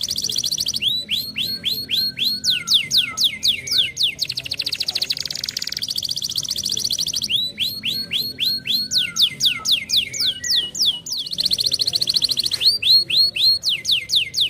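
Domestic canary singing: a fast buzzing trill alternating with runs of quick sweeping whistled notes, about six a second, the same phrase coming round again.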